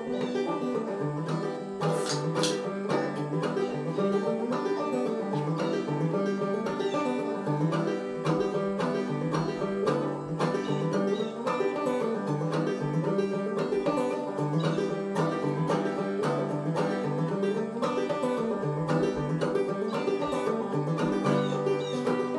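Banjo played clawhammer style: a steady, rhythmic run of plucked notes through an old-time tune.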